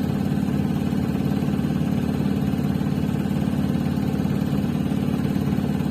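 A sailing boat's engine running steadily at an even, fast beat.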